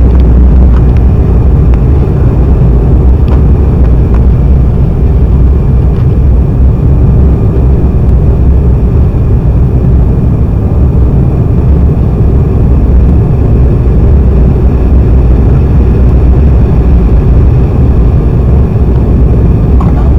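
Steady, loud rumble of an Embraer E195 airliner's twin turbofan engines and airflow, heard inside the passenger cabin, with no sudden changes.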